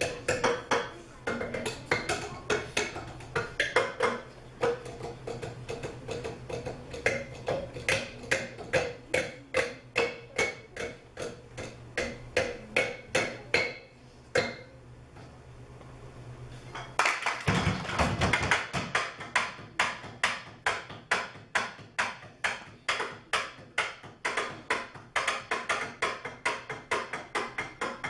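Percussion ensemble playing a rhythmic piece by striking cups: fast, sharp clicks and knocks in a steady groove. The clicks break off for a few seconds about halfway, then a low thud brings them back in.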